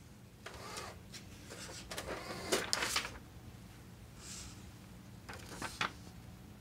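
Brother GX-6750 electronic typewriter operated and handled: a short motor whir, then a cluster of clicks and knocks, a brief rustle, and a last short whir near the end.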